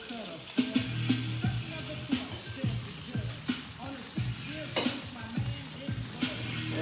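Sautéed summer vegetables (corn, spinach, tomatoes, red pepper and onion) sizzling in a skillet on the stove, a steady hiss of frying with a few short knocks of stirring in the pan.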